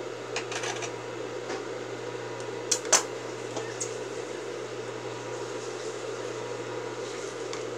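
Steady electric motor hum, with a few light clicks and two sharp clacks about three seconds in as tailor's shears are set down on the metal sewing-machine table.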